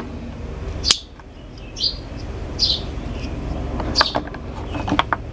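A sharp click about a second in as a small folding knife is handled, with a few short bird chirps over a steady low rumble.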